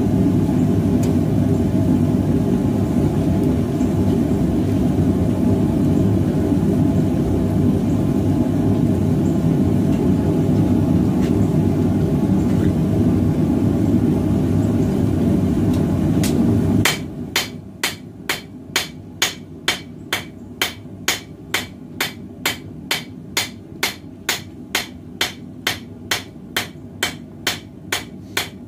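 A propane forge runs with a steady low rushing noise, which cuts off abruptly about two-thirds of the way in. Then a hammer starts striking the hot 1080 carbon steel karambit blade blank on an anvil in an even rhythm of about two ringing blows a second, forging the blade out.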